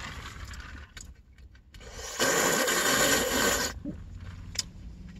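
A drink sucked up through a straw from a fountain cup: one noisy sip lasting about a second and a half, a little past the middle, with a few faint clicks around it.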